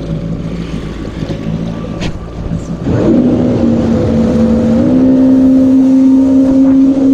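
Yamaha VX110 WaveRunner's four-stroke engine running at low speed, then the throttle opens about three seconds in: the engine note jumps louder and rises in pitch, steps up once more a couple of seconds later, and holds steady at speed. The tune-up has it running well.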